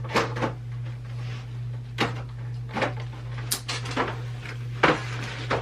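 Scattered sharp clicks and knocks of a package being handled while its packing tape is cut open with a knife, over a steady low hum.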